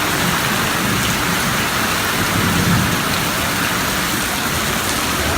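Heavy rain pouring steadily as an even hiss, with a low rumble swelling underneath it near the start and again a few seconds in.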